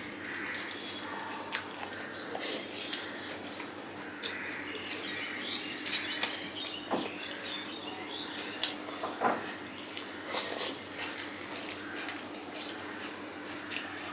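Close-up eating sounds: wet chewing and mouth smacks, with fingers mixing rice and fish on a steel plate, heard as scattered soft clicks.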